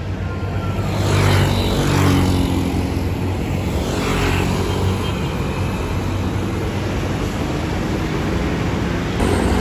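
Large diesel bus engine running with a steady low hum, and traffic rushing past that swells about a second in and again about four seconds in.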